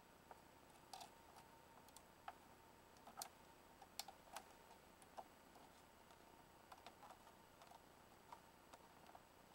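Faint scattered small clicks and taps from wires being handled and pushed into a plastic terminal connector on an LED ceiling light board, thickest in the first half, over a faint steady high hum.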